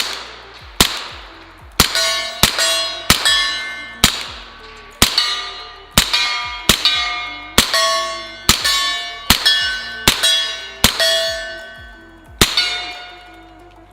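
Steel targets ringing as they are hit by rifle fire: about twenty sharp strikes in quick succession, each leaving a clear metallic ring that fades, the hits spacing out near the end.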